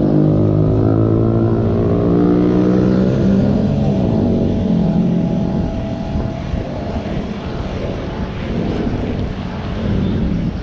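A motor vehicle engine droning at a steady pitch close by, fading into rougher road noise after about five seconds.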